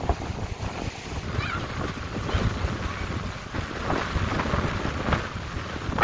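Wind buffeting the microphone: an uneven, gusty low rumble.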